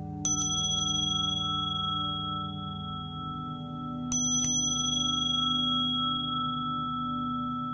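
Small high-pitched metal bells struck in a quick cluster just after the start and again in a pair about four seconds in, each ringing on in long bright tones. They ring over a steady, slowly wavering low drone of Tibetan singing bowls.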